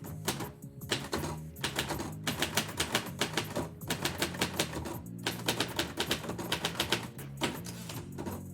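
Typewriter keys striking in quick runs of several keystrokes a second, broken by a few short pauses, over steady background music.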